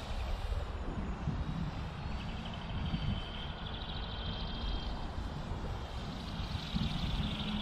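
Distant radio-controlled autogyro in flight: the thin, high whine of its Emax brushless electric motor and 12-inch propeller, drifting up and down in pitch as it flies around, over low wind rumble on the microphone.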